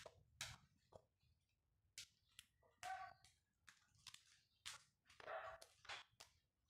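Faint, irregular clicks and short rustles as gloved hands wrap training wire around the branches of a red balete (Ficus concinna) bonsai, leaves brushing and wire snapping against the wood.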